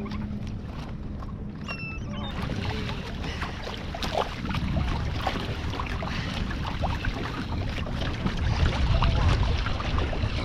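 Water splashing and dripping around a kayak, with many small irregular splashes and knocks from about two seconds in over a steady low wind rumble on the microphone.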